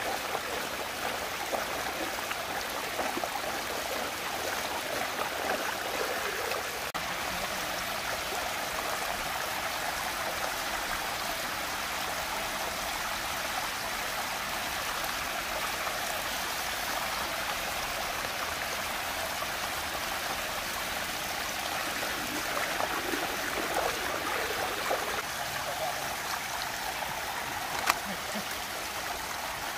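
Water rushing steadily as it swirls down into a whirlpool vortex. A single sharp click sounds near the end.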